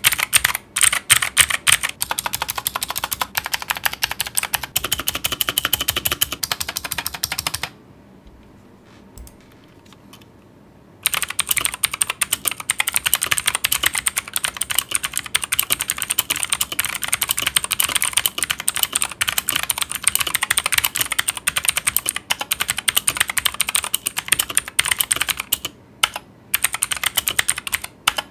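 Fast typing on a Zifriend KA802 budget mechanical keyboard with blue switches: a dense run of sharp, clicky keystrokes, with a pause of about three seconds roughly a third of the way in.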